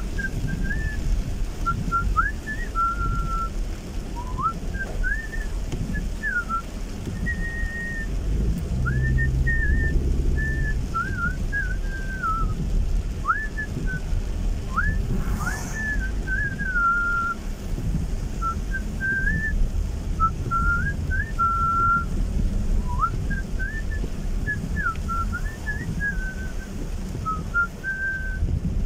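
A person whistling a wandering tune of short notes that slide up and down, over the steady low rumble of a car driving on a wet road, heard inside the car.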